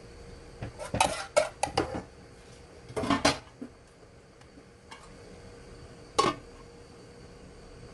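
Metal pot and utensil clatter: a quick run of light knocks about a second in, a longer rattle around three seconds, then a single sharp clank as the metal lid is set on the pot.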